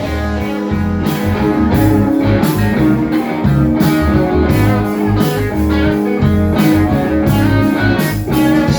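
Live band playing an instrumental passage of a blues-rock song: guitar over bass and drums, with no singing.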